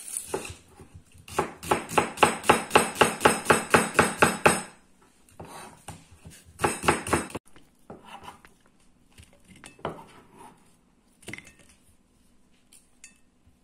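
Kitchen knife chopping an onion on a plastic cutting board: a fast, even run of knocks, about five a second, for about three seconds, then a shorter run and a few scattered, fainter cuts.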